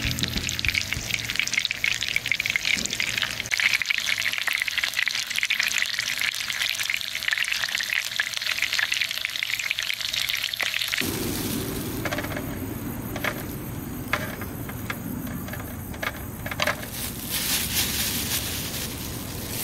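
Whole fish sizzling as it roasts in a frying pan, a dense crackling hiss. About eleven seconds in the sizzling cuts off. Outdoor air noise with a few light clicks follows.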